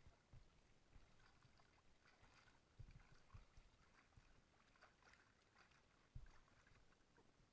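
Near silence: faint water lapping and ticking against a drifting kayak, with a few soft low bumps.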